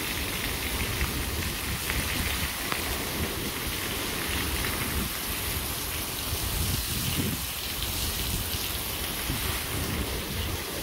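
Heavy rain falling steadily on a paved yard and patio roof, a continuous even hiss of pouring rain.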